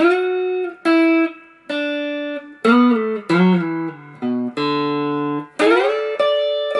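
Clean electric guitar playing a slide-guitar lick note by note in standard tuning, a phrase in D major pentatonic. Single plucked notes each ring out briefly, and several slide up into pitch along the fretboard.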